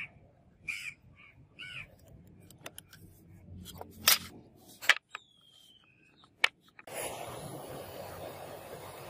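Sharp taps and clicks of a pointed scribing tool and steel ruler on a block of fire wax as lines are marked into it, with a crow cawing a few times in the first two seconds. About seven seconds in, a steady rushing noise begins.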